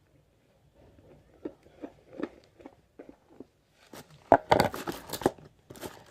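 Crinkling and crackling handling noises: scattered soft crackles at first, turning into louder, dense crinkling about four seconds in.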